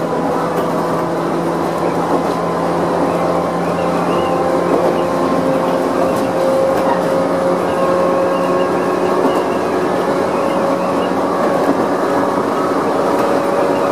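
Chichibu Railway 1000 series (ex-JNR 101 series) electric train running at speed, heard from the driving cab: a steady rumble of wheels on rail with a motor and gear whine that slowly rises in pitch as it gathers speed.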